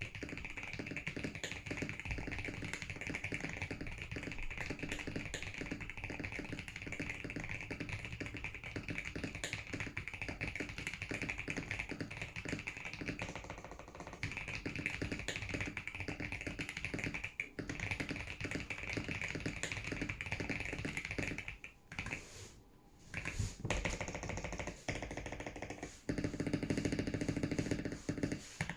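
Typing on a mechanical keyboard fitted with Boba U4T tactile switches: a dense, fast stream of keystrokes, broken by a short pause about 22 seconds in.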